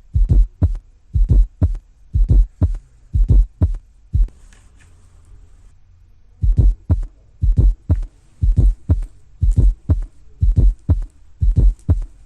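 Auscultated heart sounds with a fourth heart sound (S4 gallop): cycles of three low thumps about once a second. A soft S4 comes just before the first heart sound (lub), followed by the second heart sound (dub). The recording pauses for about two seconds near the middle. An S4 is the sign of a stiff left ventricle.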